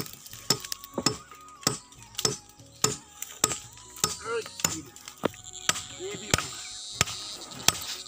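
Machete chopping into timber: sharp, evenly spaced strokes, a little under two a second.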